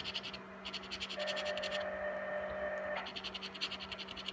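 A coin scraping the latex coating off a paper scratch-off lottery ticket in quick back-and-forth strokes. The scraping pauses for about two seconds in the middle, while a steady tone sounds, then resumes.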